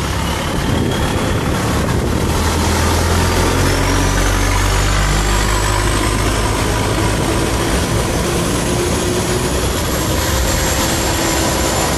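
Long-tail boat engine running hard, its pitch climbing steadily as the boat speeds up, over a rush of wind and water.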